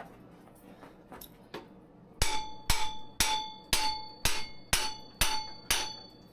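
Hammer blows on a seized bicycle part that won't budge. There are eight sharp strikes about two a second, starting about two seconds in, and each leaves a short ring.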